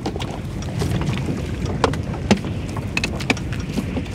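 Small river fishing boat: a steady low rumble with wind buffeting the microphone, and scattered sharp knocks and clicks throughout.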